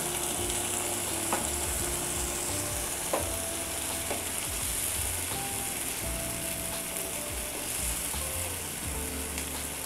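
Fish korma sizzling steadily in a nonstick frying pan, its milky spiced gravy bubbling around the katla fish pieces. A wooden spatula stirs through the gravy, with a few light knocks.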